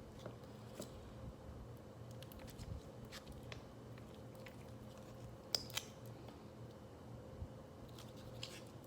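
Faint scattered clicks and soft handling sounds from an old MRE cheese spread being squeezed out and tasted, with two sharper clicks about five and a half seconds in, over a steady low room hum.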